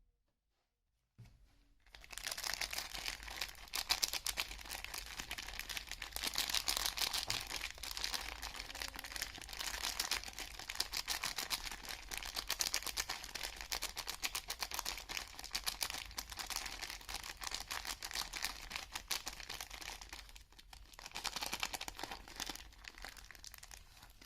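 Soap packaging being unwrapped: a wrapper crinkles and tears in a long run of close, fine crackles, starting after a short silence and easing briefly near the end.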